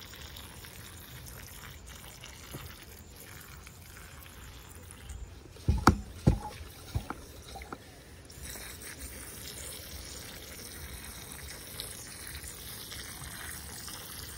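Hand-pump pressure sprayer squirting a thin stream of water into the soil of a potted jackfruit cutting, a steady trickle. A handful of short knocks in quick succession about six seconds in are the loudest sounds.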